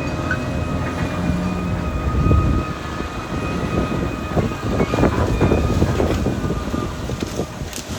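Caterpillar D6R XL crawler bulldozer working: its diesel engine runs steadily under a constant high whine, while the steel tracks clank and rattle, the clatter coming thicker from about halfway through.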